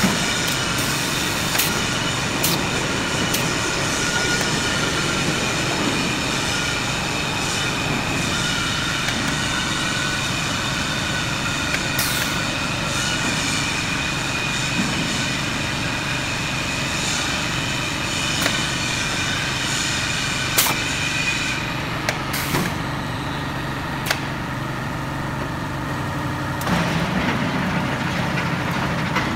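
Automatic palletizing machinery running: a steady mechanical hum with several high whining tones, broken by occasional sharp clicks and knocks as the overhead gripper handles the metal paint pails. Near the end the high whine fades and a lower rumble comes in as the loaded pallet moves along the roller conveyor.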